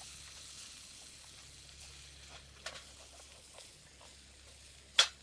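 Faint sizzle of pig-head meat frying in a skillet over a wood fire, fading over the first couple of seconds. A few small ticks follow, then one sharp crack near the end.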